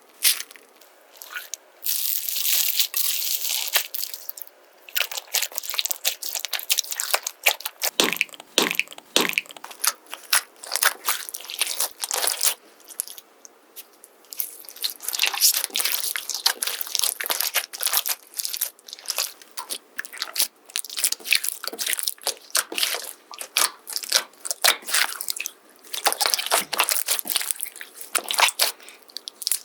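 Slime squeezed and pressed by hand, making dense runs of sharp crackling clicks and pops, with a few short pauses.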